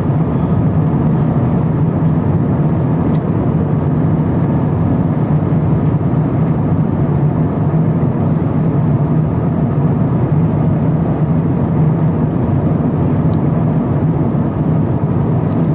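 Steady, even vehicle running noise, a low rumble with a few faint clicks.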